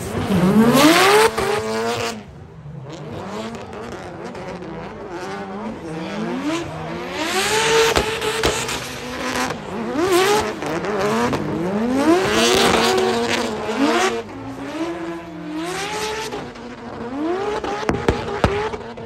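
Drift car engines revving hard, the pitch sweeping up and dropping back over and over as the drivers work the throttle and clutch through the corners. Tyres screech and hiss at the loudest moments.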